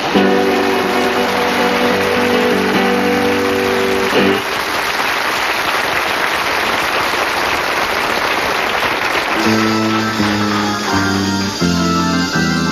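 An acoustic guitar rings out a held final chord while an audience applauds; the clapping carries on after the chord stops. About three-quarters of the way through, a new piece of music starts with a stepping low melody.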